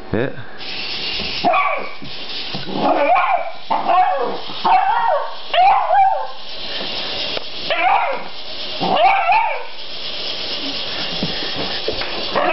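A dog barking and yelping in a series of short calls, each bending up and down in pitch, with short pauses between them, over a steady hiss.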